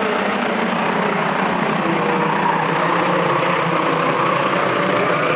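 A field of short-track racing pickup trucks running at speed, their engines blending into one steady, loud engine noise.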